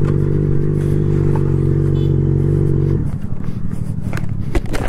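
Yamaha motorcycle engine running at a steady pitch, then dropping to a rougher, lower note about three seconds in as the throttle is closed and the bike slows onto the gravel verge. A few sharp knocks near the end.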